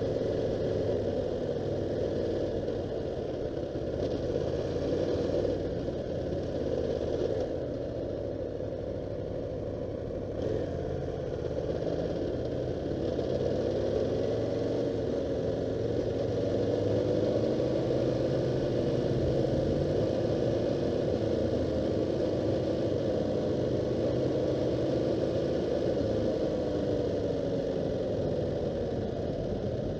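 A vehicle's engine running on track, its revs slowly rising and falling, recorded by a Drift Ghost action camera that the owner reports as faulty and noisy.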